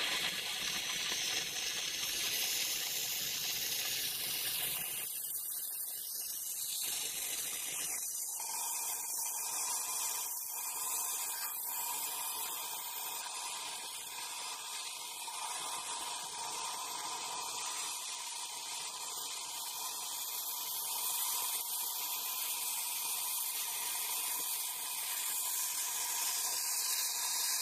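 Stick welding (shielded metal arc) with a 3/32-inch 6010 electrode: the arc runs as a steady hiss while it lays a keyhole root pass on 2-inch Schedule 80 pipe. The sound thins slightly about five seconds in.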